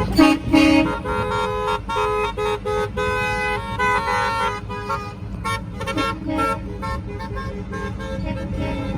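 Many car horns honking in short, overlapping toots, two loud low ones right at the start, over a steady low rumble of traffic.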